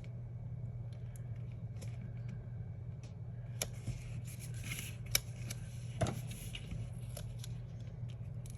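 Paper stickers and planner pages being handled on a desk: small clicks and taps, with a brief scratchy rustle near the middle and a sharper tap or two after it. A steady low hum runs underneath.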